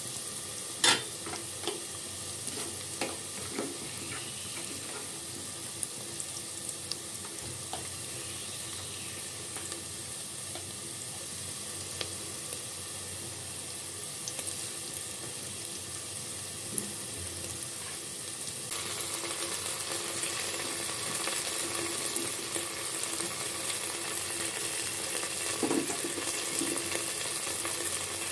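Sliced onions frying in hot oil in an aluminium pot: a steady sizzle with a few sharp clicks near the start, the loudest about a second in. About two-thirds of the way through, the sizzle turns louder and brighter.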